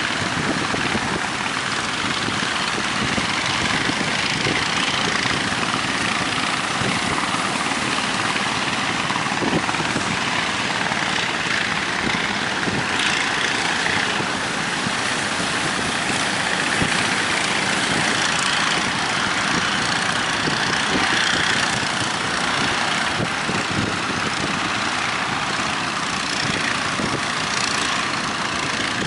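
A boat's engine running steadily, mixed with wind and rushing water.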